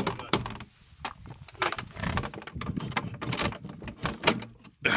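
Rusty metal sliding bolt being worked on an old wooden door: a run of sharp clicks, knocks and rattles of metal against wood.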